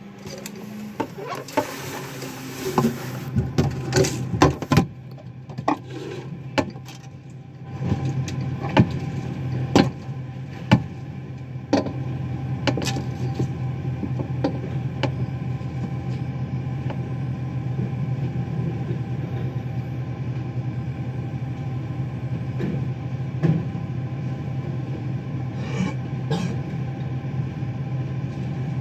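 A run of sharp knocks through the first twelve seconds or so, then the steady low drone of a Freightliner garbage truck's diesel engine idling.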